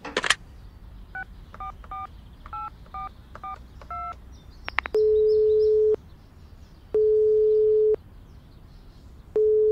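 A short sharp noise, then a telephone number keyed in on a touch-tone phone: a quick string of about seven keypad beeps. The line then rings out, with long steady ringback tones about a second each, repeating every two seconds or so, heard through the handset.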